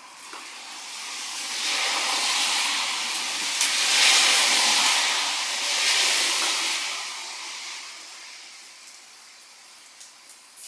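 A hiss that swells up over a couple of seconds, holds, then fades away by about eight seconds in.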